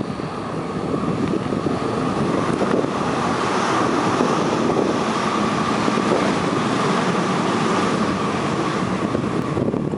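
MTR West Rail Line electric train running past close below, a steady rumble of wheels on rail with a steady high hum over it. It builds over the first few seconds and drops off sharply near the end as the train clears.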